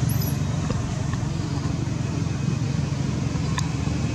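A steady low engine rumble, like a motor vehicle running.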